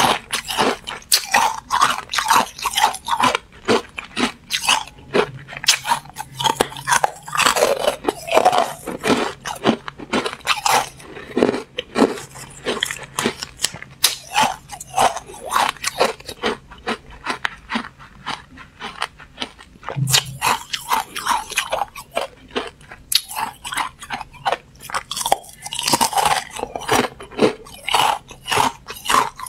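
Person biting and chewing carbonated ice, a dense, continuous run of brittle crunches.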